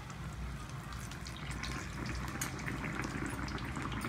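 Hot oil sizzling around a batter-coated bread slice as it fries in a pan, with many small crackles.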